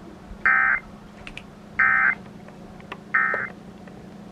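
Emergency Alert System end-of-message code: three short bursts of SAME data tones, about 1.3 seconds apart, signalling that the alert is over.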